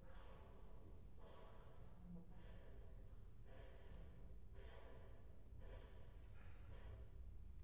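Faint, breathy rushes of air repeating in a steady pattern, about seven in a row roughly a second apart, each lasting under a second, over a low hum.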